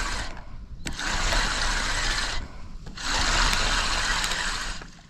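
Spinning reel on a feeder rod being cranked to bring in a hooked fish: a steady grinding whirr in two stretches with a short pause between them, and a click about a second in.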